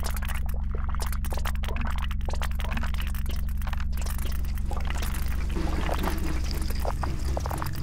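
Experimental sound-art soundscape: a steady low hum under dense crackling clicks, which turn into a grainier, hissing texture about five seconds in.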